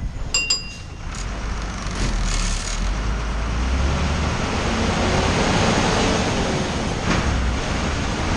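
Diesel engine of a KSRTC bus running under way, with low rumble and road noise that swell about two seconds in and hold steady. A few short clicks sound about half a second in.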